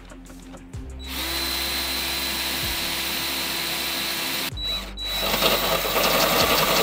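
Power drill boring a pilot hole into the Jeep's body metal for a rivet nut. The motor runs at a steady pitch for about three and a half seconds, stops briefly, then runs again louder and rougher.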